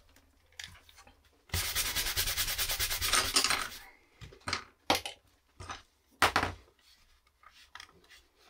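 A wooden tool rubbed briskly back and forth over a leather phone case for about two seconds, a fast rasping rub. It is followed by several short knocks as tools are handled on the bench.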